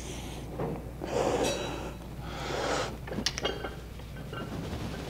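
A person breathing hard, with two long, noisy breaths about a second and a half apart, followed by a few light clicks.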